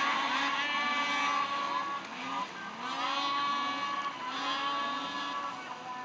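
Several snowmobile engines idling together and being revved, their pitches rising and falling over one another as throttles are blipped on the start line.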